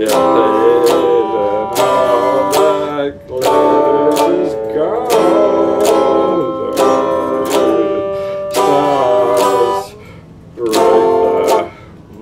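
RockJam Stratocaster-style electric guitar strummed in chords, a sharp stroke every half second to second with the chord ringing between, the playing dropping away briefly about ten seconds in.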